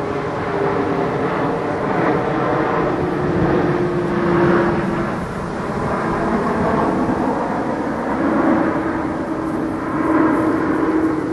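A steady engine drone with a faint hum that slowly sinks in pitch.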